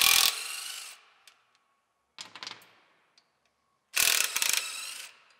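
Cordless impact wrench running on the bolts that hold an intake manifold to its elbow: two short bursts, one at the start and one about four seconds in, each loud for about half a second and then dropping to a quieter whirr, with a fainter brief whirr between them.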